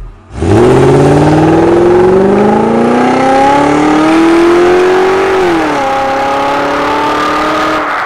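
A car engine revving hard, starting suddenly: its pitch climbs steadily for about five seconds, then drops and holds lower, over a steady rushing hiss.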